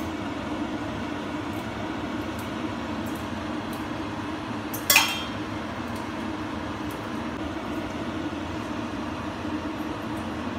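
A steady low hum runs throughout. About five seconds in, a glass mug holding fried bread cones gives one sharp clink as the cones are handled.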